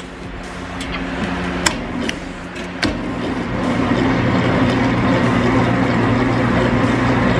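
Electric stand mixer running steadily, its beater churning cloud slime in the bowl, with a few sharp clicks in the first three seconds. It gets louder about three seconds in.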